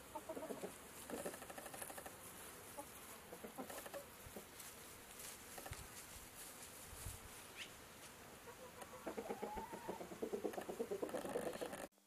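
Chickens clucking faintly in short repeated clucks. The clucking grows busier and louder in the last few seconds.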